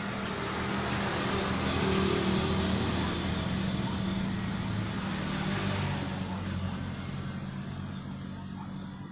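A motor vehicle engine running, with a steady hum. It grows louder about two seconds in, then slowly fades.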